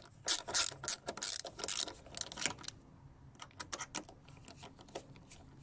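Ratcheting screwdriver clicking as it turns a screw out of a car's plastic side vent. Louder, separate clicks for the first two and a half seconds, then fainter, quicker ticks.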